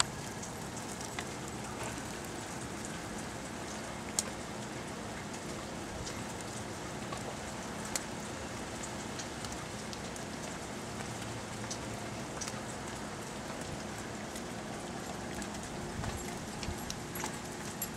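Steady patter of a wet snowstorm, wet snow falling like rain, with scattered sharp ticks; the loudest come about four and eight seconds in.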